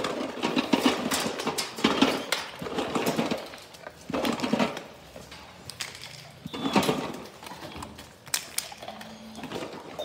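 Labrador retriever puppies gnawing on chew bones: irregular clicking, crunching and scraping, with louder clusters every second or two.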